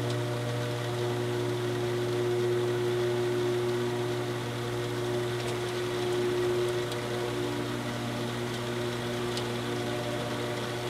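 Metal-cutting saw's electric motor running with a steady hum, with a few faint ticks over it.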